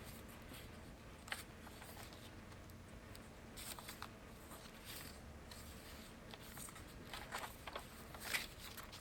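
Faint rustles and light taps of a handmade paper journal being handled, its pages turned. A few soft scattered sounds, coming more often near the end.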